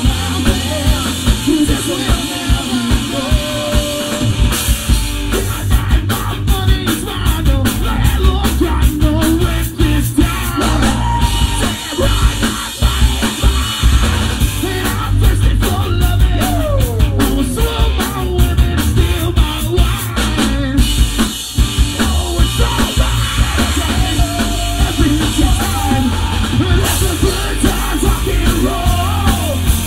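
Live punk rock band playing loud: drum kit, electric guitar and a vocalist singing through the PA.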